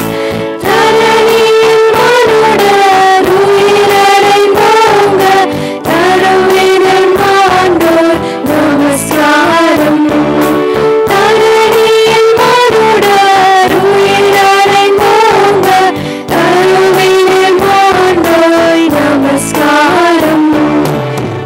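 A group of young women, a college choir, singing a song into a microphone over a public-address system, with instrumental accompaniment. The melody runs in long phrases with brief breaks between them.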